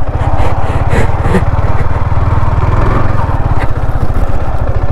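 Yamaha R15 M's single-cylinder four-stroke engine running steadily under load as the motorcycle is ridden up a rough off-road track.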